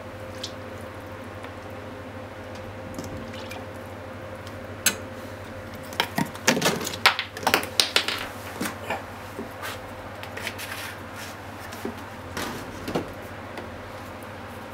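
Kitchen handling sounds: scattered sharp clicks and knocks of utensils and bottles, thickest a few seconds into the middle. Under them is a steady background hum whose faint tone stops about halfway.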